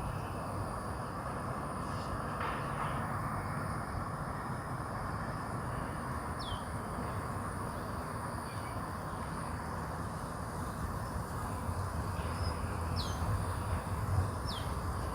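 Outdoor ambience: a steady low background hum and hiss, with a few short, high, falling bird chirps about six seconds in and again near the end.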